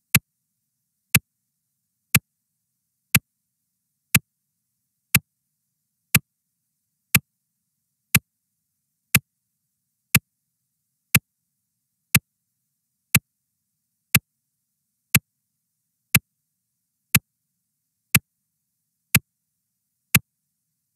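Clock-tick sound effect of a countdown timer: one short, sharp tick every second, evenly spaced, with silence between ticks.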